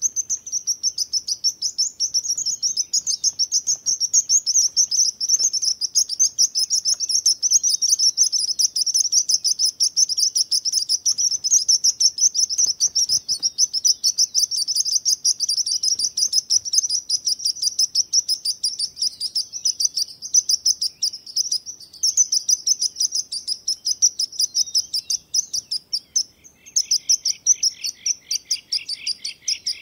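Sparrows chirping in a dense, rapid, unbroken stream of high notes. Near the end a second, lower series of quick chirps joins in.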